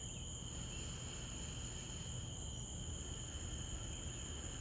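Chorus of crickets trilling steadily, an unbroken high-pitched drone at two pitches, over a faint low rumble.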